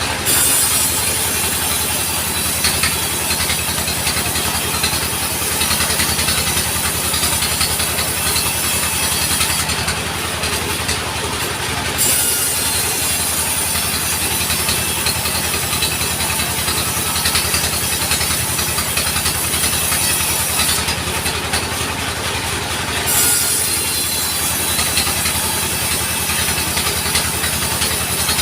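Engine-driven sawmill saw cutting timber: a steady engine hum under a high hissing cutting noise. The cutting noise stops twice for about two seconds, a third of the way in and again about three quarters through, while the engine keeps running.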